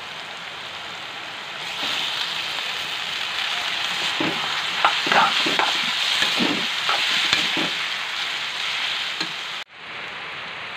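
Vegetables and noodles sizzling as they are stir-fried in a metal kadai, getting louder about two seconds in. A steel spoon scrapes and clinks against the pan several times in the middle.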